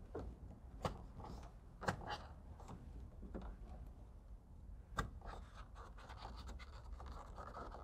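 A plastic trim tool scraping and rubbing along car interior trim as a microphone cable is tucked in behind the cant-rail trim, with a few sharp clicks, one about a second in, one about two seconds in, and the loudest about five seconds in.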